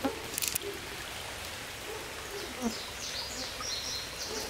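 Steady hiss of water, with a songbird singing a quick run of short, high, repeated notes through the second half. A brief rustle comes about half a second in.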